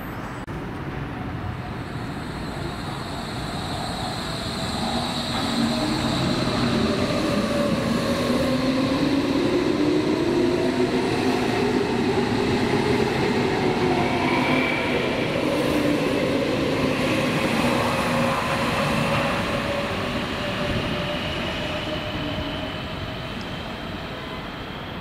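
Berlin S-Bahn Class 480 electric multiple unit pulling out of the station and accelerating away. Its traction drive whines in several tones that climb in pitch as it gathers speed, over rumbling rail noise that builds to a peak midway and then fades as the train runs off.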